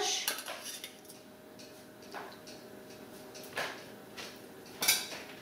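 Metal spoon scraping and clinking against a stainless steel saucepan as thick goulash is spooned out onto a plate: a handful of short scrapes, the strongest at the very start and just before the end.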